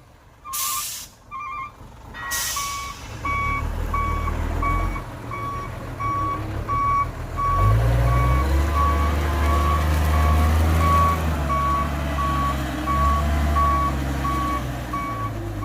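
Dump truck reversing: its back-up alarm beeps steadily about twice a second over the diesel engine, which picks up revs about halfway through. Two short hisses of air come near the start.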